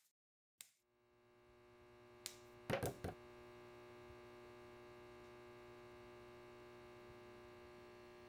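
Faint, steady droning hum of stacked tones, horror-film sound design, fading in over the first two seconds and then holding level. A cluster of knocks stands out about two to three seconds in.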